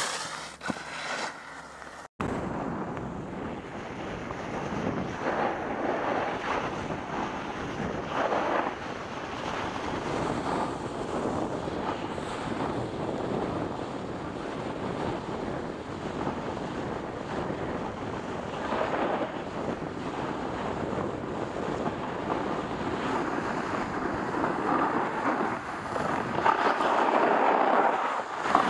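Wind rushing over the microphone of a camera carried by a skier descending a groomed piste, mixed with the steady hiss and scrape of skis on packed snow, broken by a brief dropout about two seconds in.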